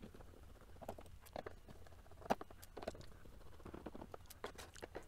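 Faint scattered clicks and short scrapes from a precision Torx screwdriver being handled and set against the screws of a 2.5-inch hard drive's metal case.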